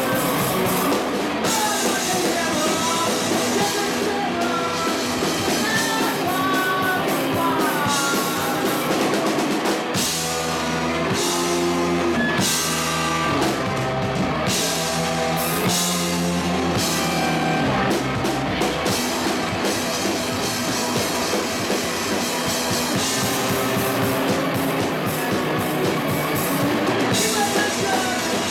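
A rock band playing live: two electric guitars, bass guitar and drum kit. Near the middle, for several seconds, the band switches to repeated stop-start chords.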